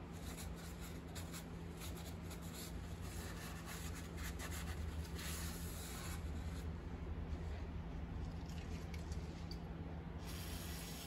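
A short hiss of aerosol brake cleaner being sprayed, about five seconds in, over a steady low hum and faint rubbing and handling noises. The spray is washing spilled engine oil off a catalytic converter.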